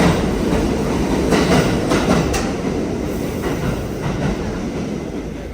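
New York City subway train running through the station, its steel wheels rumbling and clacking over rail joints several times in the first few seconds; the sound slowly fades as it goes.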